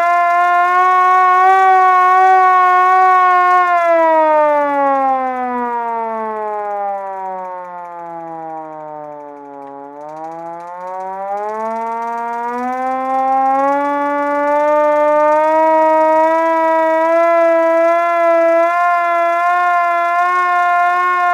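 Vintage manual fire truck siren wailing at a steady high pitch, then winding down over about six seconds to a low pitch and growing quieter, before winding back up to the same high pitch and holding there.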